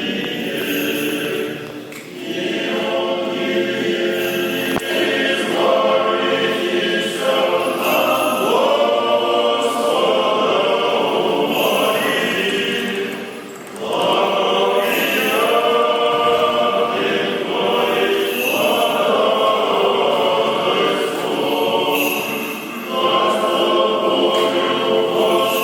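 Church choir singing Orthodox liturgical chant in long phrases, with brief pauses between them.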